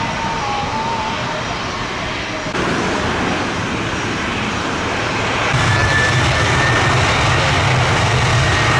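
Airliner engines running loud: a dense rushing roar with a faint high whine over it. The noise steps up abruptly twice, about two and a half and five and a half seconds in.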